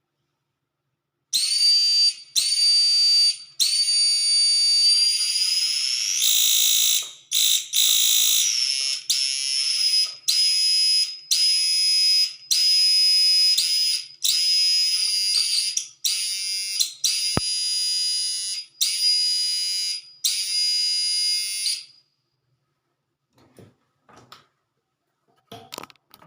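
High-pitched electronic whine from a homemade electric fishing-machine circuit, switched on and off about once a second, its pitch rising briefly a few seconds in, then stopping; a few faint clicks near the end.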